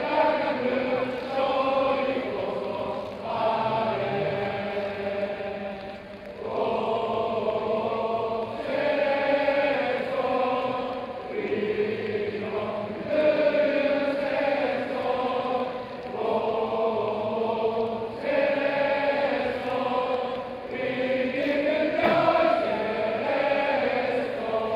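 Football supporters singing a chant together in long, held melodic phrases that rise and fall every few seconds.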